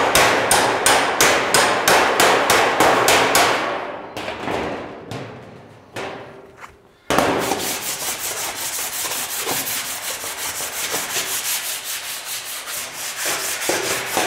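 Regular blows on a steel car bonnet, about three a second, from panel-beating with the dolly behind it; they stop about four seconds in. From about seven seconds in, a body file scrapes back and forth across the bare steel in rapid strokes. The filing shows up the high and low spots in the panel.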